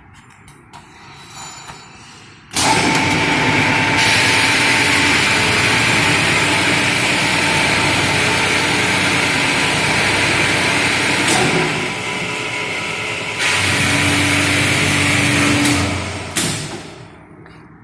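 Glass drilling machine starting up about two and a half seconds in and running loudly with a steady grinding hiss and hum. The noise drops briefly around the middle, then rises again with a low steady hum before the machine stops near the end with a knock.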